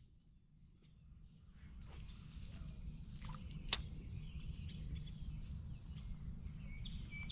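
A steady, high insect chorus drones without a break, over a low rumble of outdoor noise that builds from about a second in; one sharp click about three and a half seconds in.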